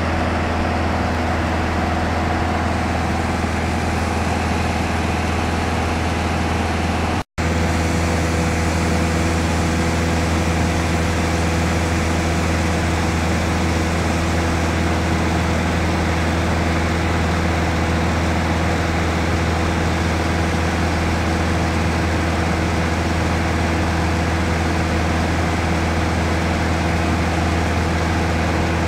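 Light touring aircraft's piston engine and propeller running at a steady cruise drone, heard from inside the cabin, with a momentary dropout about seven seconds in.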